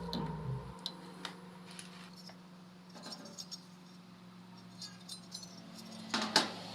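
Light metallic clicks and clinks of small objects being handled, with a louder clatter about six seconds in, over a faint steady hum.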